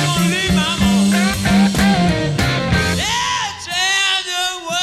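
Live blues-rock recording played from cassette tape: electric guitar with bent notes over bass and drums. About three seconds in, the bass and drums drop out, leaving the sliding guitar line on its own.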